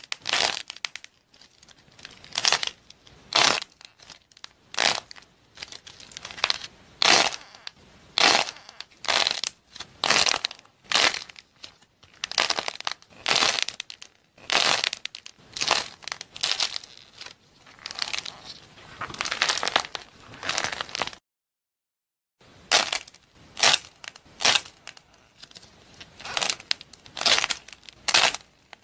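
Crisp crackling and crunching as hands squeeze and tear doughnuts apart, a burst about every second. A brief silence falls a little after two-thirds of the way through before the crackling resumes.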